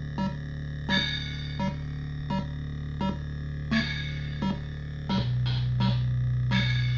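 Roland SP-808 sampler playing back a short pop loop slowed to 33% of its normal speed with VariPitch: a low held note under evenly spaced keyboard hits about every 0.7 seconds. The low note changes and gets louder about five seconds in.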